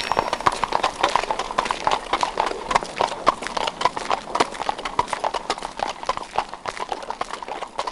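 Hooves of a horse pulling a bendi carriage clip-clopping on an asphalt road at a walk, a quick run of sharp hoofbeats several times a second.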